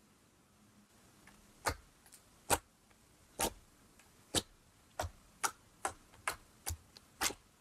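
Glossy red slime pressed and poked with fingertips, giving about ten sharp pops and clicks. They start about a second and a half in, roughly one a second, and come faster, about two a second, toward the end.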